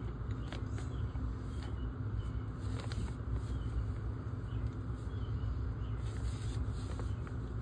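Steady low rumble with a faint hum, under scattered light clicks and taps from CPVC pipe and fittings being handled.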